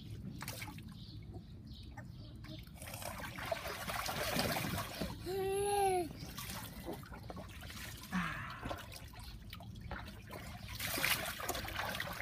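Water trickling and splashing in a shallow inflatable paddling pool as a toddler wades in it, swelling a few seconds in and again near the end. About five seconds in, a short voice sound rises and falls in pitch.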